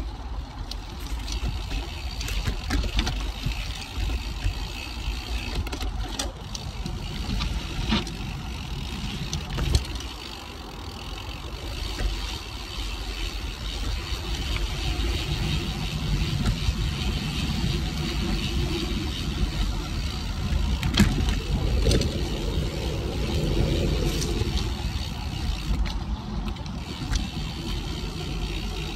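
Cervelo Aspero gravel bike on 47c tyres rolling fast over a dirt singletrack: a steady rushing and rumbling of tyres on dirt, with a few sharp rattles and knocks from the bike, the loudest about 21 seconds in.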